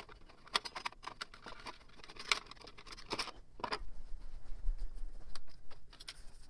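Clicks and scrapes of a UPS's plastic front faceplate being worked off its metal chassis by hand: a scattering of sharp ticks over the first few seconds, then duller handling noise.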